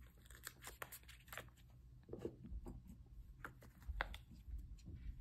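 Faint, scattered clicks and taps of washi tape rolls being handled and stacked in the hands.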